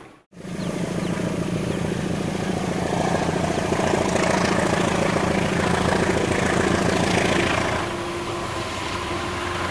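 Diesel locomotive engine running with a steady low drone as a train draws near, a little louder from about three seconds in and easing off near the end.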